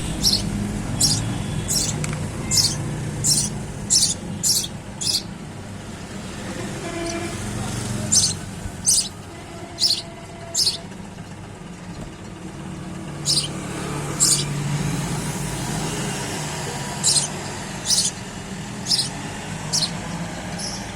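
Sparrow chirping: short, sharp single chirps repeated about once or twice a second in runs, with pauses of a few seconds between runs. A steady low traffic rumble runs underneath.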